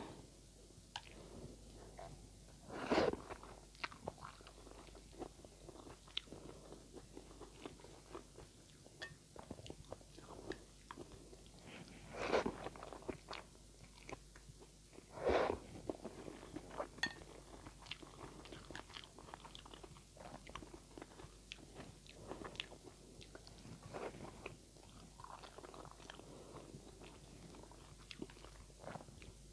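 Close-up eating of instant noodles: steady chewing with many small wet mouth clicks, and three louder slurps of noodles.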